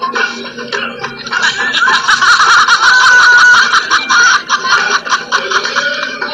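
Onlookers laughing, loudest in the middle.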